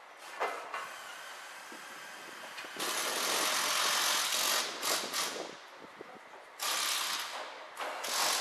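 City street traffic: a vehicle going by, with a loud hissing rush of noise that starts abruptly about three seconds in, and a second shorter burst near the end.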